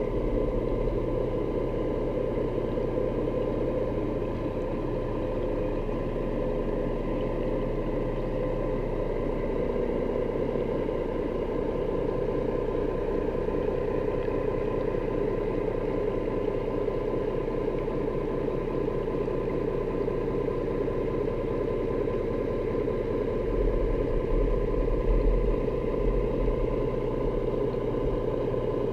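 Steady motor drone heard underwater through a camera housing, with a constant hum and no change in pitch, typical of a boat engine running during an underwater video transect. Near the end it briefly grows louder with low rumbling.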